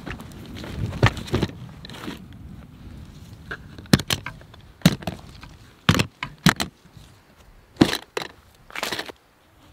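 Hard plastic gun case rustling through leafy undergrowth as it is carried and set down, then its latches snapped open one after another: a run of sharp plastic clicks and snaps over the last few seconds, about seven in all.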